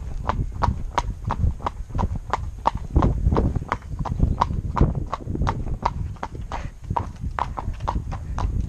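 A pony's hooves clip-clopping on a tarmac road in a steady, even rhythm of about three strikes a second, with a low rumble underneath that swells about three seconds in.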